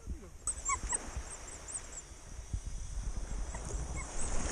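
Low, rough rumble of wind and shallow sea water at the shoreline, with a small bird chirping quick runs of high notes.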